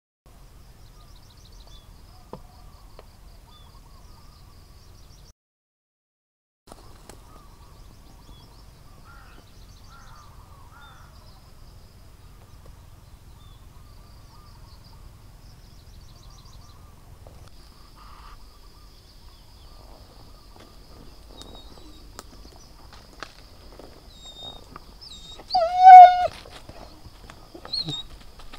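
Outdoor forest ambience: faint chirping and high, steady insect trilling over a low rumble, cutting out briefly about five seconds in. Near the end comes one loud, harsh animal call lasting about a second, then a shorter one.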